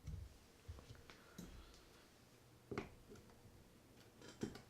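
Faint, scattered clicks and taps of a screwdriver and small metal reel parts being handled, with the loudest click about three seconds in.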